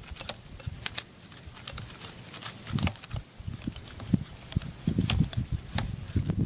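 Scattered light clicks, taps and soft thumps of hand work, irregular and without a steady rhythm.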